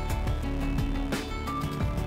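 Background music with a beat and sustained notes.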